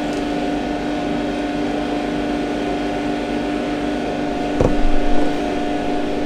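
Steady hum of an electric motor running at an even pitch, with a single short thump about four and a half seconds in.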